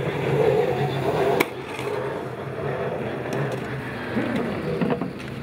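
Peugeot 908 HDi FAP's diesel V12 running at low pit-lane speed, a steady hum that stops short at a sharp knock about a second and a half in. After it come quieter pit-stop knocks and clatter from the crew working on the car.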